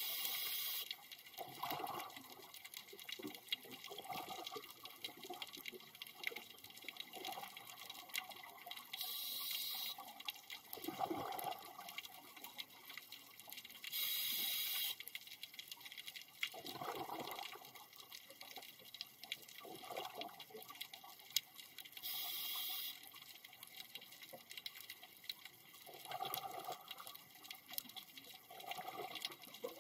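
A scuba diver breathing through a regulator underwater: a short hiss of air every five to eight seconds, with bubbly gurgling bursts between.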